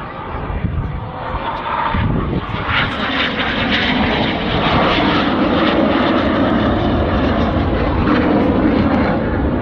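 Red Arrows BAE Hawk T1 jets flying past, their Adour turbofan engines a steady jet roar that grows louder about two seconds in and stays loud.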